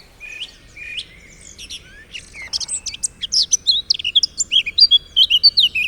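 Birds chirping and singing, a string of quick high chirps and short whistled sweeps that grows much busier and louder about halfway through.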